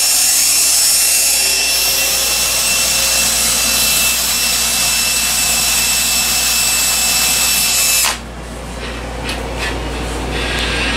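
Cordless drill running steadily at high speed, its motor giving a high whine as it drills into a small part held in locking pliers; it stops about eight seconds in, followed by a few light clicks.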